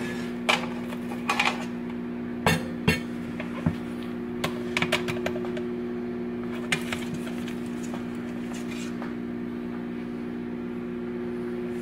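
A spatula knocking and clinking against the metal air fryer basket while a salmon fillet is turned over, a dozen or so irregular taps. Underneath is a steady appliance hum.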